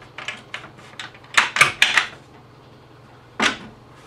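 Metal barrel bolt and wooden sliding-dovetail support leg of a folding outfeed table being worked to release and fold the table: a run of sharp clicks and clacks, with a loud cluster of about four a little over a second in and one more knock near the end.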